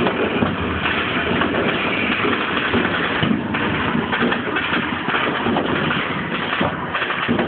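Dense, unbroken barrage of Chinese New Year firecrackers and fireworks going off all around, countless cracks and bangs merging into one continuous rumbling din.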